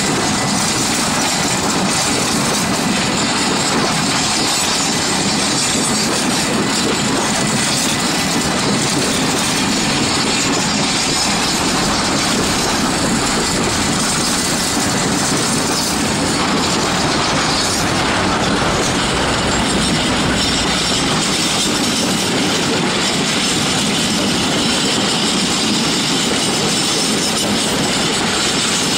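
Container flat wagons of a long freight train rolling past close by: a steady, loud clatter of steel wheels on the rails.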